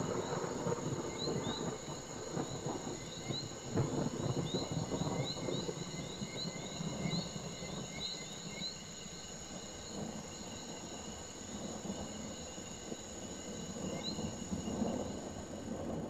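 Rainforest insects keeping up a steady high buzz, with a run of short high chirps over the first half and one more near the end, over an uneven low rumble.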